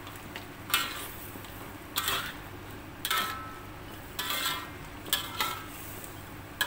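A metal spatula scraping against an aluminium wok as chicken and pumpkin pieces are stirred, in short strokes about once a second.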